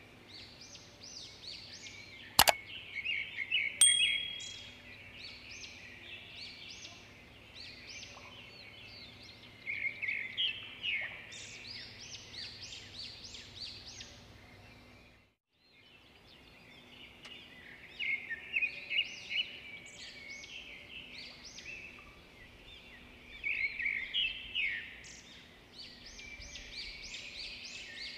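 Small birds chirping and twittering in bursts every few seconds, over a faint steady hum. A sharp click comes about two and a half seconds in, and the sound cuts out for a moment about halfway through.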